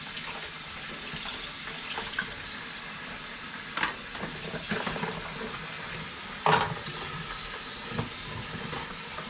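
Kitchen tap running into a mixing bowl as the dishes are washed, with a few knocks from the bowl and utensils being handled, the loudest about two-thirds of the way through.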